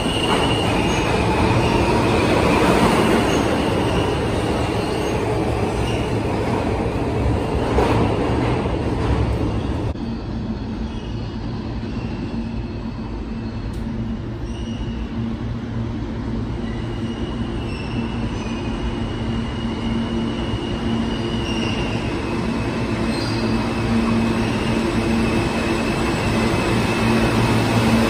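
New York City subway R160 train pulling out of the station, running loud with a high wheel squeal and fading by about ten seconds in. Another R160 train then approaches, its wheels squealing, and grows louder as it enters the platform near the end.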